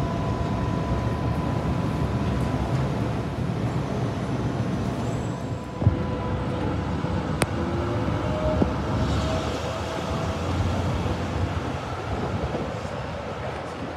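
Melbourne tram at a stop: a steady low rumble with faint steady whine tones, a single thump a little before the middle, then tram and street noise out on the platform with a faint gliding tone.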